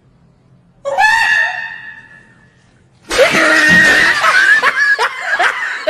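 Screaming: a sudden high-pitched cry about a second in that fades away over about a second, then a loud, chaotic burst of screams from about three seconds in.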